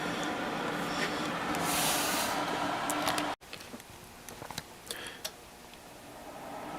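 Waykar PD160B dehumidifier's fan running alone on low speed, compressor off: a steady whir with a faint hum. About halfway through the sound cuts off abruptly, leaving a much quieter stretch with a few faint clicks.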